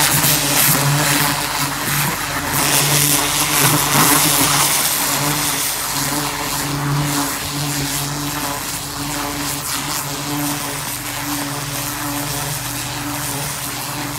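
Pressure washer running, its high-pressure water jet blasting into bare soil: a loud, steady hiss of spray over the even hum of the machine's motor and pump.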